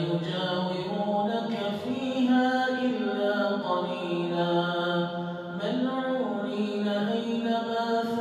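An imam's melodic Quran recitation in tajwid style: one man's voice chanting slow, drawn-out phrases, holding long notes that step up and down in pitch with only brief breaks between phrases.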